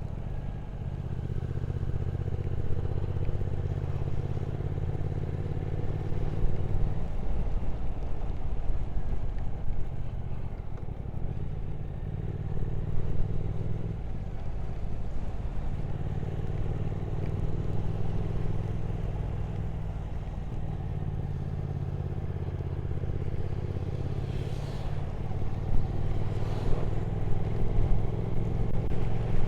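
Triumph Speed Twin 1200 parallel-twin engine running at road speed, with road noise underneath. Its steady note drops away briefly three times, about seven, fourteen and twenty seconds in, then picks up again.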